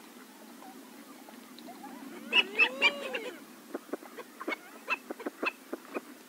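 Common pochard calling: a brief group of loud calls about two and a half seconds in, one with a rising-then-falling note, followed by a run of about a dozen short, sharp notes.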